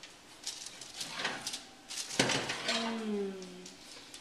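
Metal baking sheet of cookies being pulled out of the oven across its wire rack, scraping and clanking, with a sharper clank about two seconds in and a short falling squeal after it.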